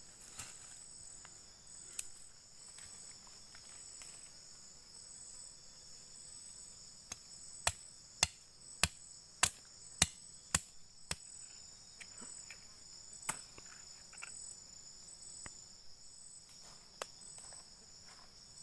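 Insects chirring steadily in the forest at a high pitch. Midway through comes a run of about seven sharp knocks, evenly spaced at roughly two a second, with a few single knocks before and after.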